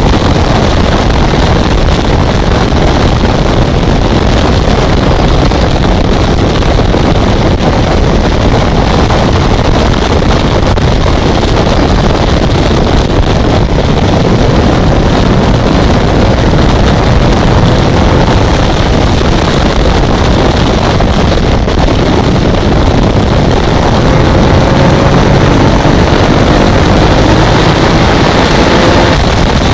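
Ducati ST4S's 996 cc L-twin engine running under way, largely buried under heavy wind noise on the microphone. Near the end the engine note climbs as the bike accelerates.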